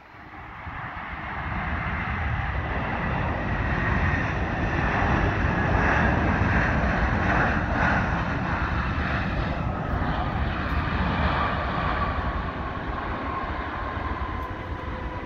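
Jet engines of a landing Boeing 787-10 airliner. A rushing roar builds over the first few seconds and is loudest around the middle, then an engine whine slides steadily down in pitch as the aircraft rolls out on the runway.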